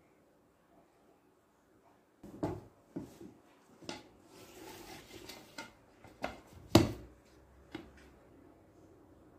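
Tableware being handled on a table: a run of short knocks and clinks, with a soft rubbing scrape in the middle. The loudest knock comes near the end.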